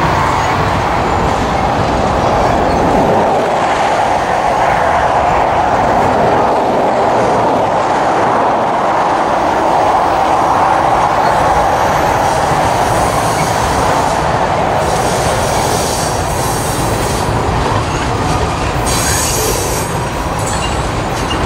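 Loaded freight cars (covered hoppers and tank cars) rolling steadily past close by, their steel wheels rumbling and clattering on the rails, with a high squeal from the wheels on the curving track.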